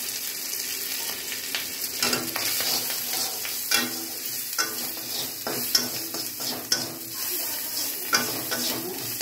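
Prawns, onion and turmeric sizzling in hot oil in a metal kadai while a flat metal spatula stirs and scrapes the pan, with a few sharper knocks of the spatula against the pan.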